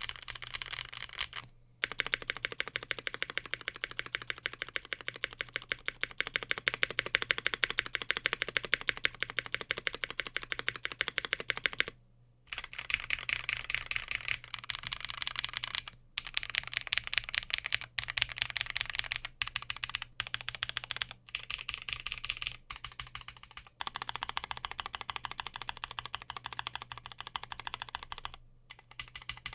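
Fast continuous typing on a custom 60% mechanical keyboard with lubed Holy Panda tactile switches on a brass plate and GMK doubleshot keycaps, many keystrokes a second in long bursts broken by brief pauses. A steady low hum sits underneath.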